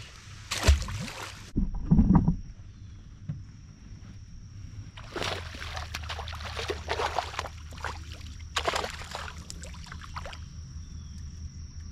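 Knocks and thuds in a small fishing boat, two loud ones in the first couple of seconds, then several seconds of rustling and splashing as a fish and tackle are handled, over a steady low hum and a thin high-pitched whine.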